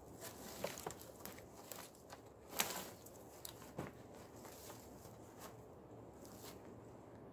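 Faint footsteps crunching in snow with small clicks and crackles of wooden poles and branches being handled, and one louder crunch about two and a half seconds in.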